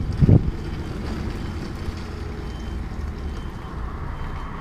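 Truck's diesel engine idling with a steady low rumble.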